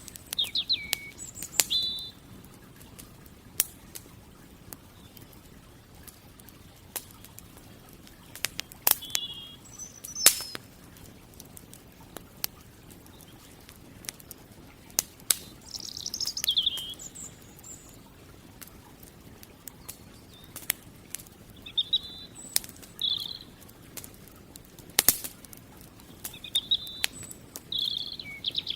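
Campfire crackling with scattered pops, and a songbird singing short warbling phrases every few seconds.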